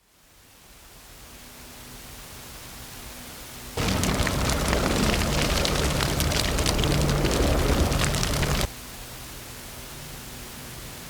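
Sound-effect ambience: a steady hiss fades in, then a loud crackling rumble starts suddenly about four seconds in and cuts off abruptly about five seconds later, falling back to the quieter hiss with a faint low hum.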